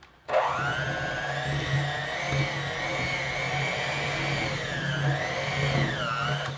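Electric hand mixer running, its beaters working flour into thick peanut butter cookie dough in a glass bowl. The motor whine starts just after the beginning, rises quickly, holds steady, and sags in pitch a couple of times near the end before it stops.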